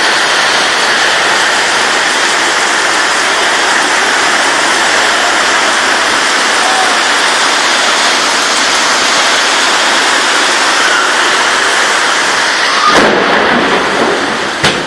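Heavy tropical rain pouring down in a loud, steady hiss, with a sudden thump near the end.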